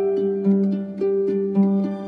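Instrumental background music: a slow repeating figure of sustained notes, a new note about every half second, alternating between a low note and a higher one.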